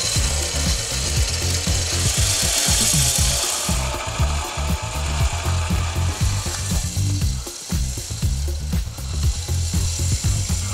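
Front-mounted electric winch of a Kymco MXU 300 quad being worked with its steel cable: a steady mechanical running with rapid irregular clicking and rubbing.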